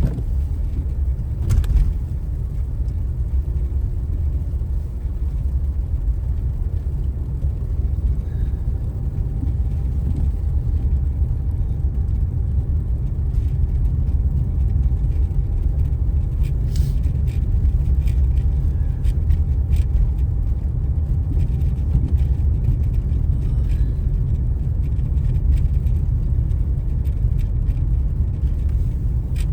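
Steady low road rumble of a car driving on a snow-covered freeway, heard from inside the cabin.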